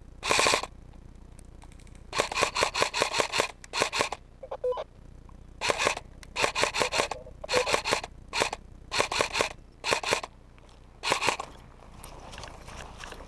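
Airsoft electric rifle firing fully automatic in a series of short bursts, each a rapid run of mechanical clicks and snaps.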